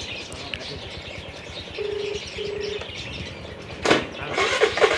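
Street background with a pair of short, steady electronic beeps, then a sudden loud burst near the end as a scooter's engine starts.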